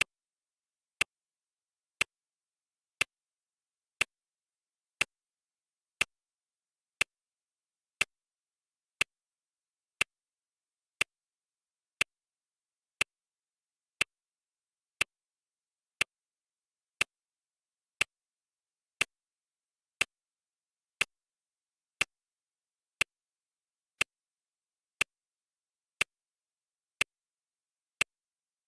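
Clock ticking sound effect of a countdown timer: one sharp, even tick each second, steady and unchanging.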